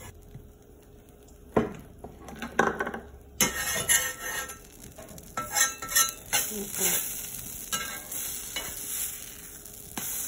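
Metal spatula scraping and clacking on a stovetop griddle, prying up and flipping banana oat pancakes that are sticking, over the sizzle of the pancakes frying. The sizzle grows louder about a third of the way in.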